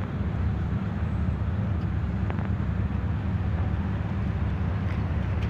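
Steady low rumble of a moored passenger cruise boat's engines running, with a hiss of wind and sea above it.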